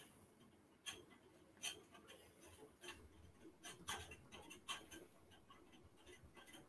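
Near silence broken by faint, irregular clicks and small knocks, about a dozen over several seconds.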